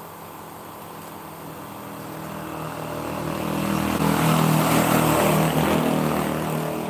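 Engine of a passing vehicle, a steady hum that grows louder over a few seconds, peaks, then fades as it goes by.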